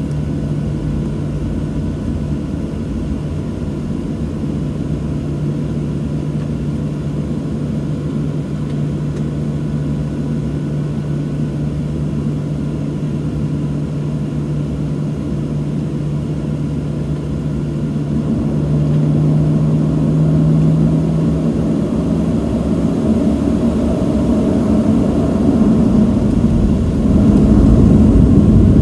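Boeing 737-700 jet engines heard from inside the cabin while taxiing: a steady low hum with a held tone. It grows louder about two-thirds of the way through and again near the end.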